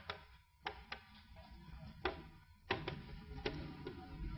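Several faint, irregular clicks and taps over a quiet room background with a thin steady hum.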